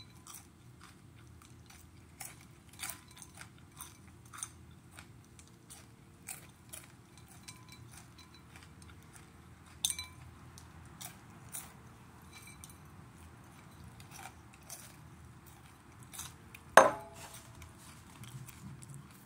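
Chewing and crunching of dried chili pepper pieces, with small scattered clicks as fingers pick pieces out of a glass bowl. Near the end one sharp, much louder knock as the glass bowl is set down on the table.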